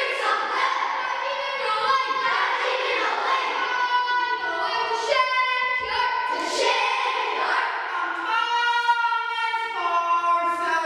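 A group of primary-school children singing a song together, holding notes and stepping between them.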